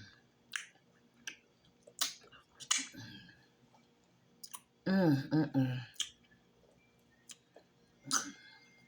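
Close-up eating sounds of fufu with okra stew: scattered wet lip smacks and chewing clicks, with a hummed "mm" of enjoyment about five seconds in.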